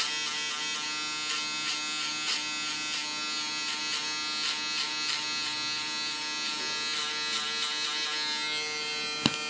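Andis foil shaver running with a steady electric buzz, worked in short strokes over the buzzed nape to blend out the clipper and shaver lines in a fade, each pass adding a faint scratch. A sharp click near the end.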